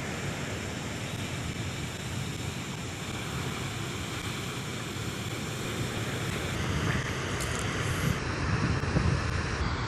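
Surf washing over a boulder shore: a steady rushing noise that grows a little louder in the second half.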